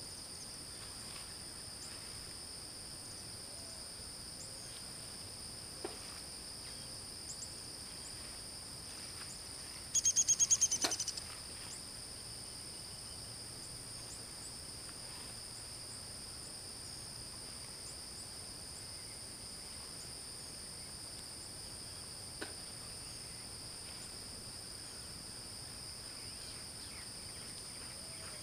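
Steady high-pitched drone of insects in a summer field, two even pitches held throughout. About ten seconds in, a loud, rapid trill of evenly spaced pulses lasts about a second.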